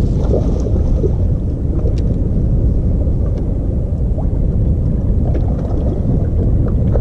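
Steady low wind rumble on the microphone over choppy water, with a brief splash of a hooked smallmouth bass at the surface right at the start.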